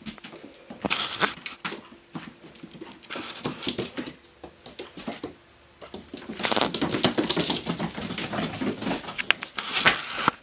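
Magyar agar puppies' claws and paws clicking and scuffling on a wooden floor as they run and play. Many quick irregular clicks, busiest in the second half.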